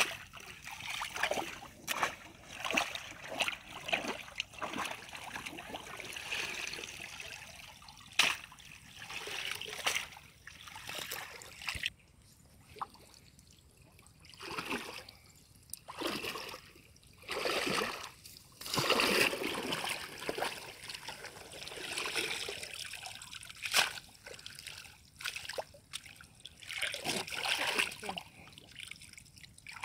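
Shallow muddy water splashing and trickling in irregular bursts as a woven bamboo basket and hands are worked through it, with water running back out of the basket when it is lifted.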